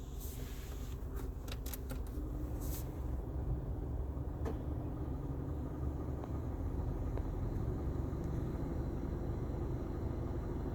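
2008 Mitsubishi Lancer GTS running steadily with the air conditioning on. There are several sharp ticks in the first few seconds and a few fainter ones later: the weird tick the owner hears only when the AC is on.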